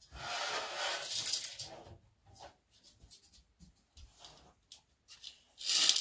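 Rubbing and scraping as a desktop computer case's removed metal side panel is handled and lifted: a scrape lasting about two seconds at the start, a few light knocks, then a louder scrape near the end.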